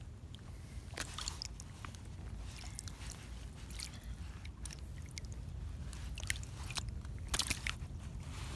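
Handling noise: scattered, irregular sharp clicks and small water sloshes over a steady low rumble.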